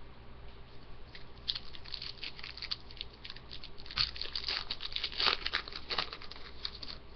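Foil trading-card pack wrapper crinkling as it is torn open and handled, with cards sliding out. The crackling thickens about a second and a half in and is loudest around four to six seconds in.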